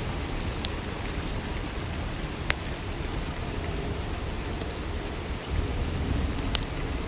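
Steady rainfall, an even hiss with a few sharp ticks scattered through it.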